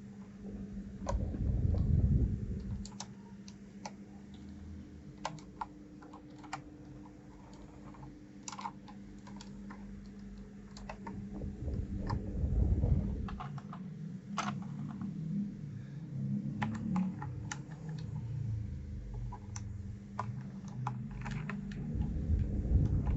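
1STPLAYER DK5.0 mechanical keyboard clicking irregularly, sparse key or keycap clacks rather than steady typing. Louder low rumbling bumps of handling come about two seconds in, around twelve seconds and near the end, over a steady low hum.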